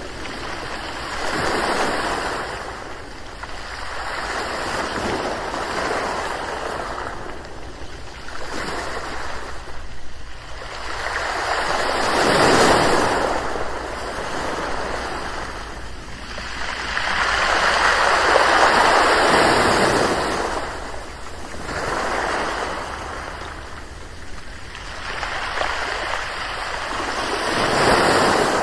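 Ocean waves breaking and washing in, the surf swelling and falling away every few seconds, with the biggest surges about halfway through, for several seconds after that, and again near the end.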